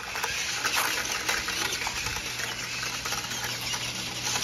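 Electric motor and gears of an RC Grave Digger monster truck whirring as it drives over dirt towing a small plastic trailer, with a steady low hum and scattered small clicks and rattles.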